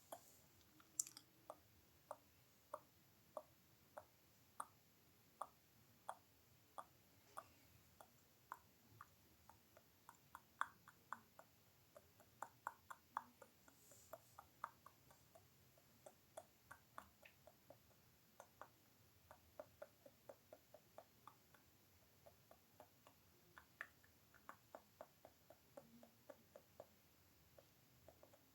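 A long series of sharp mouth clicks. They come singly at about one a second at first, then faster in irregular runs from about ten seconds in.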